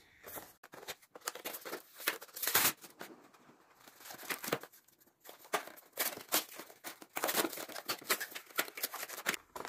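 Paper and card packaging rustling and crinkling as it is handled and pulled open by hand, in irregular bursts, the loudest just before three seconds in.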